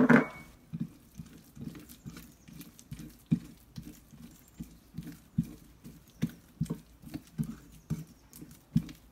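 A hand beating and slapping soft, wet sfenj (Moroccan doughnut) dough in a ceramic plate: short wet slaps about two a second, with a louder knock at the very start.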